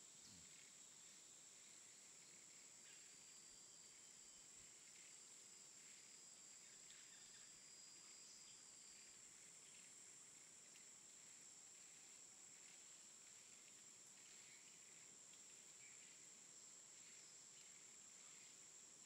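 Faint, steady high-pitched drone of insects, otherwise near silence.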